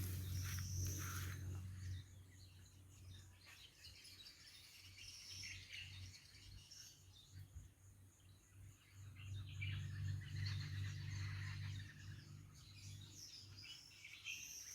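Faint birds chirping on and off, over a low steady hum that fades out about two seconds in and returns for a few seconds in the second half.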